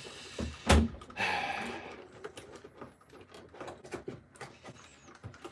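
Cardboard toy packaging handled with gloved hands: a knock, then about a second of cardboard rubbing and sliding, followed by small scattered taps and rustles.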